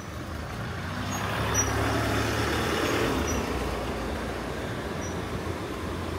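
A motor vehicle passing on the road, its engine and tyre noise growing to a peak about two to three seconds in and then easing off, over a steady low engine hum.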